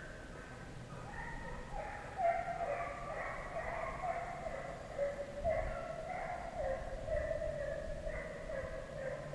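A pack of deer hounds baying on a chase, several dogs giving long, overlapping, wavering bays at once.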